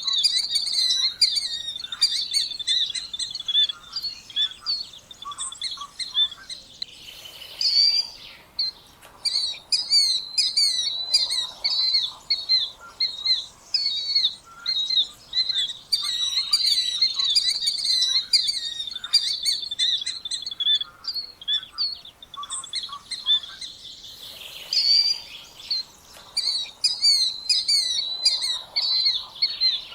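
Killdeer calling over and over in quick, shrill, high notes, with many short calls overlapping. There are brief breaks about a quarter of the way in and again about four-fifths of the way through.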